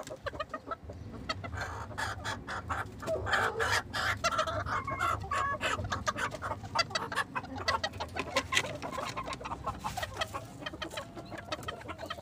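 Serama bantam chickens clucking, the calls busiest a few seconds in, over scattered light taps.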